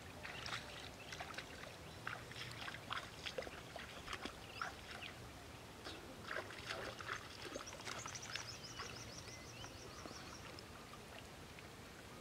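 Light splashing and dripping of shallow river water as someone wades and dips their hands in to pick up snails, in short irregular splashes. A high, rapid chirping trill comes in about two-thirds of the way through.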